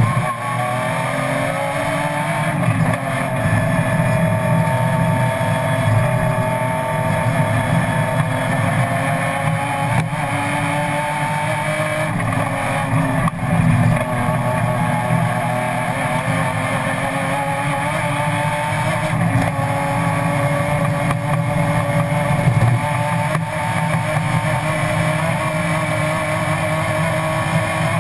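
BMW M3 race car engine heard from inside the cabin, running hard on track, its pitch climbing slowly under acceleration and dropping back now and then.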